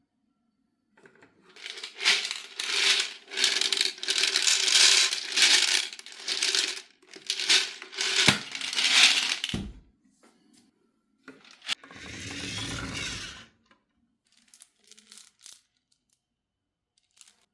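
Marbles rolling and clacking down a wooden marble run and dropping into a toy truck bed: a dense clatter of clicks and knocks with a couple of low thuds, then a short rolling rumble and a few scattered clicks.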